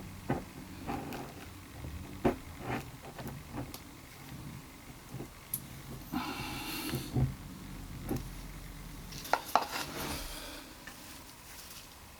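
Repair tools and containers being handled on a hard surface: scattered small clicks, knocks and clatter, with two short scraping or rustling bursts, one a little past the middle and one near the end.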